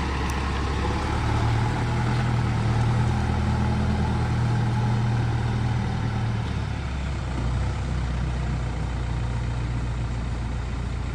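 Heavy diesel engine running steadily under moderate load, its low note a little stronger for a few seconds about a second in, then easing back.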